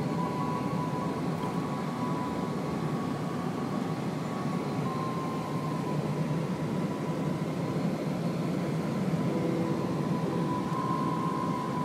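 Steady road and engine noise inside a moving car, with a few faint held tones coming and going over it.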